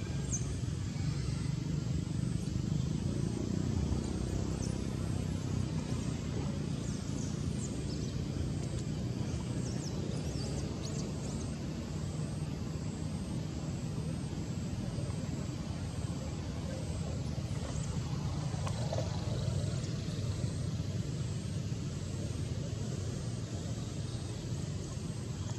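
Steady low rumble of outdoor background noise, with faint, short high-pitched squeaks now and then.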